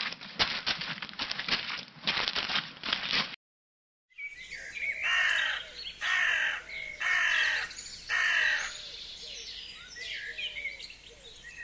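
A rapid, irregular run of clicks and rustles, then a cut to a bird giving four harsh calls about a second apart. Smaller birds chirp in the background.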